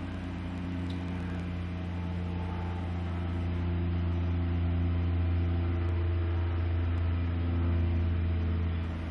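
Ultralight aircraft's Rotax 503 two-stroke twin engine and propeller droning in flight overhead: a steady low hum with several pitched tones that slowly grows louder toward the middle and eases off near the end.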